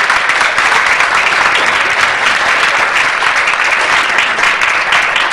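Theatre audience applauding, a dense, steady clapping from many hands that holds at the same level throughout.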